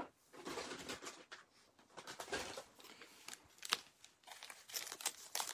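Crinkling and rustling of fly-tying material being handled as a hank of Angelina synthetic flash fibre is fetched, in short irregular bursts with a few sharp ticks.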